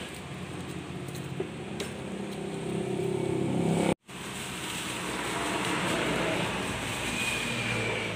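A motor engine running with a steady low hum that grows louder, cut by a sudden brief dropout about four seconds in. After the dropout a hissy, rustling noise carries on over a fainter hum.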